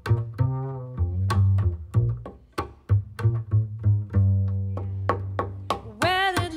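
Upright double bass playing a plucked pizzicato solo line, a steady string of deep notes, with light cymbal strokes from the drum kit behind it. A wavering sung line comes in near the end.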